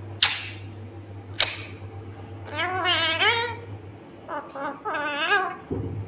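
Indian ringneck parakeet vocalizing: two short sharp sounds in the first second and a half, then two bursts of wavering, warbling chatter, one about halfway through and one near the end.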